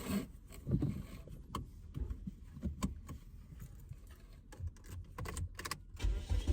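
Keys jangling with scattered light clicks and knocks, followed near the end by a low rumble.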